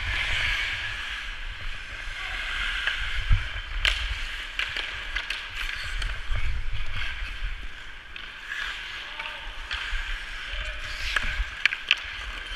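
Ice skate blades hissing and scraping across the rink surface, with a low rumble and sharp clacks of hockey sticks and puck; the loudest clack comes about four seconds in, and several more come near the end.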